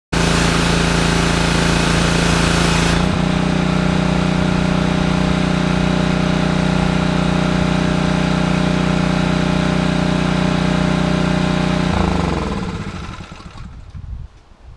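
Simoniz gas pressure washer's 173cc four-stroke overhead-valve engine running steadily, with a loud spray hiss for the first three seconds. It is shut off about twelve seconds in and winds down to a stop.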